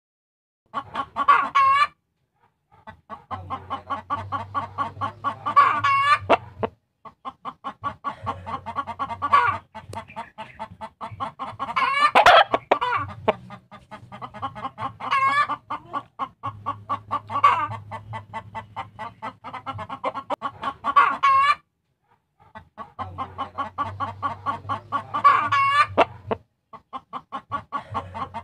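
Chicken clucking in fast runs of several seconds, each run ending in a louder squawk, with short pauses between runs. A low steady hum sits under most of the runs.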